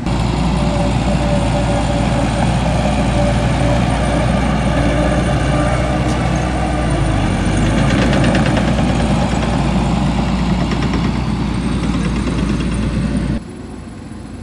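Heavy construction machine's diesel engine running steadily and loudly, with a constant low hum. The sound drops off sharply about a second before the end.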